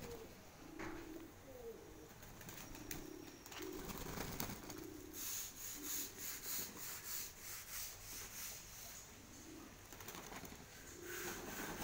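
Flock of domestic pigeons cooing, low coos repeated throughout, with a run of rapid wing flapping about halfway through.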